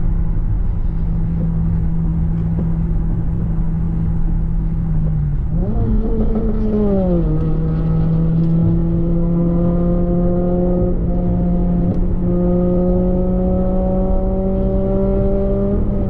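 Motor vehicle engine running steadily over low road noise. About six seconds in, its pitch rises and then drops as in a gear change, then slowly climbs again as the vehicle accelerates.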